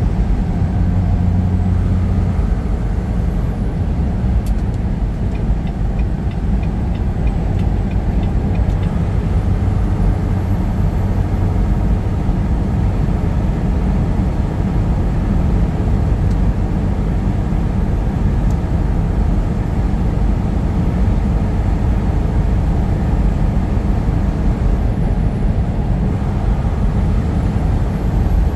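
Semi-truck engine drone and road noise heard inside the cab while cruising at highway speed, a steady low rumble throughout.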